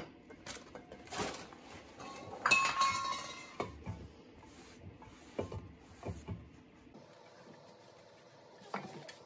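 A rag rubbing over a new cast-iron brake rotor as it is wiped down on the wheel hub, with scattered metallic clinks and a brief metallic ring about two and a half seconds in, the loudest moment.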